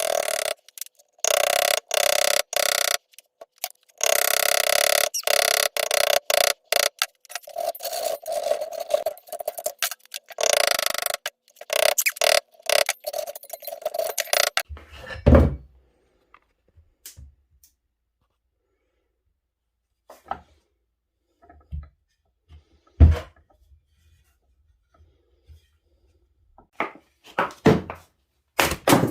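A power tool running in on-and-off runs of one to several seconds, stopping about halfway through; after that, a few scattered knocks and thuds.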